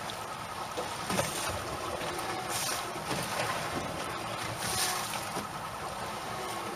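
Steady wind and water noise aboard a small open boat at sea, with a few brief louder swishes.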